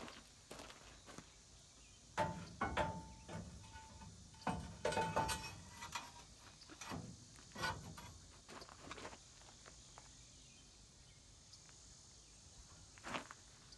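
Irregular knocks and clanks, a few with a short ringing tone, over a faint hiss.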